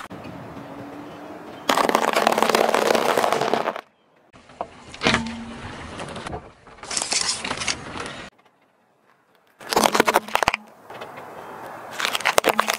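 Car tyre rolling over objects on asphalt in a run of short clips: a rush of tyre-on-road noise, a sharp knock, then two bursts of crackling crunches, the last as the tyre crushes a pile of radishes near the end.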